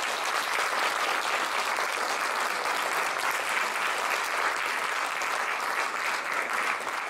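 Audience applauding steadily in a concert hall.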